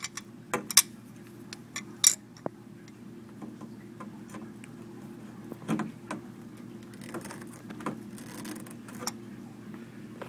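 Channel-lock pliers clinking and clicking on a frost-cracked copper water pipe as the crack is squeezed closed. Sharp metallic clicks come strongest in the first two seconds and once more near the middle, over a steady low hum.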